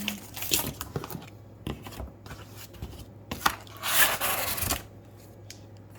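Cardboard and plastic packaging being handled: scattered clicks and knocks, then about four seconds in a scraping rustle lasting about a second.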